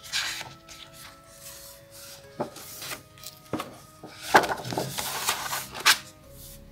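Paper page of a spiral-bound sketchbook being turned over its binding: rustling and rubbing in several short bursts, the loudest and densest about four to six seconds in.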